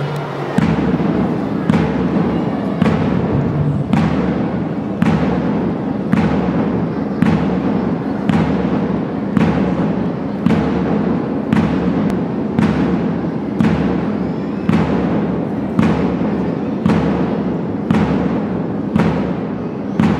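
Slow processional march music: a deep drum beat strikes steadily about once a second over a continuous low backing.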